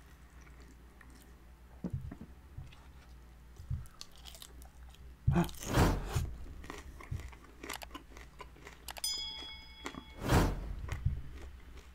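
Crisp fried birria taco being bitten and chewed: a loud crunching bite about halfway through and another near the end, with quieter chewing in between.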